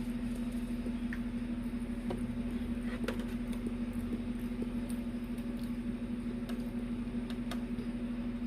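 A steady low hum with faint, scattered clicks and smacks of someone eating over it.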